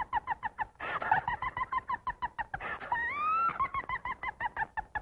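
Cartoon cackling voice effect, chicken-like: a rapid run of short clucking notes, about seven a second, broken about three seconds in by one rising call before the clucking resumes.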